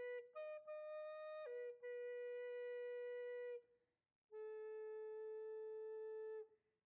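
Tribal heart-centered flute playing a slow phrase of long held notes, stepping up and back down in pitch, with a short breath pause about four seconds in before a lower note is held.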